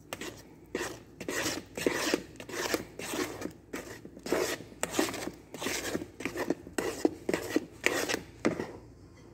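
Wooden spatula stirring cake batter in a bowl, folding in the milk by hand. It scrapes the batter against the bowl in a steady rhythm of about two strokes a second, stopping near the end.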